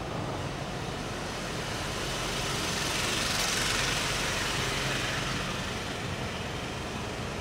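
A train passing close by: a steady rumble that swells to its loudest about halfway through, then slowly eases off.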